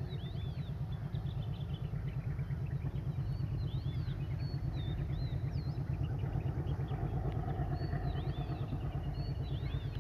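Low, fast, regular throb of a diesel locomotive engine, growing slightly louder as the train approaches. Birds chirp over it.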